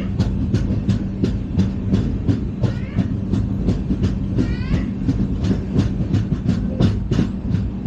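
LHB passenger coach running at speed: a dense, irregular clatter of wheels over the track over a steady low hum, with two short high squeals about three and five seconds in.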